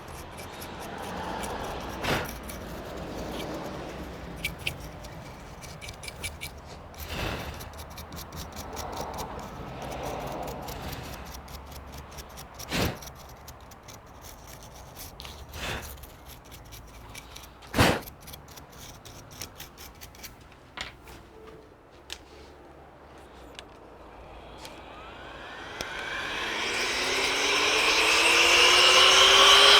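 Brush scrubbing dust from the cooler grille of a CPU fan assembly, with a few sharp clicks and taps. Near the end air is blown through it: a rush of air with a whine rising steadily in pitch and growing loud as something spins up.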